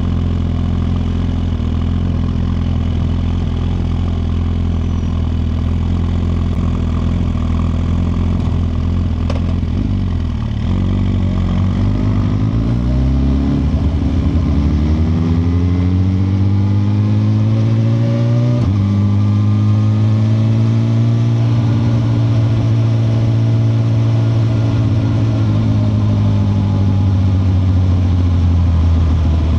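2021 Suzuki GSX-R1000R's inline-four engine runs steadily for about ten seconds, then accelerates with its pitch rising. It shifts up about two-thirds of the way through with a sudden drop in pitch, then holds a steady pace.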